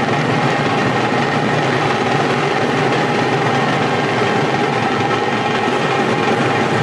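Drum ensemble of large cylindrical drums beaten with sticks in a loud, dense, unbroken barrage accompanying Veeragase dance, with a faint held tone above it.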